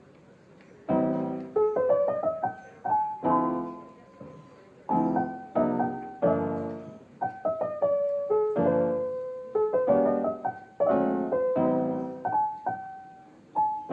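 Background piano music: chords and melody notes struck and left to ring, beginning about a second in.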